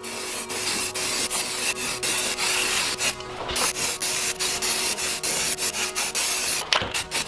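Aerosol spray can of sandable primer hissing as a heavy coat goes onto a wheel, starting abruptly, with a short break about three seconds in and another near the end.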